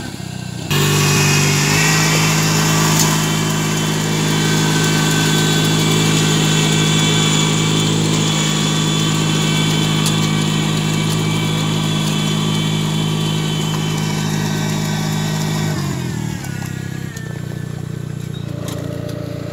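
Small engine of a riding rice transplanter running steadily as the machine plants seedlings in a flooded paddy. About three-quarters of the way through, the engine drops to a lower, quieter note.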